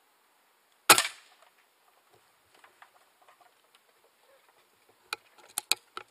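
A single air rifle shot about a second in, sharp with a short ring after it. A quick run of sharp clicks follows near the end.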